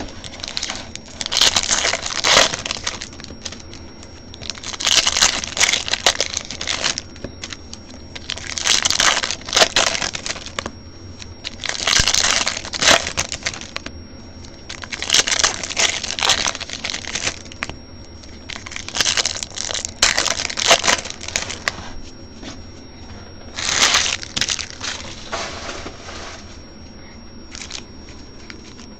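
Foil wrappers of 2015 Bowman Draft trading card packs crinkling and crackling as hands handle them, in about eight separate bursts every three to four seconds.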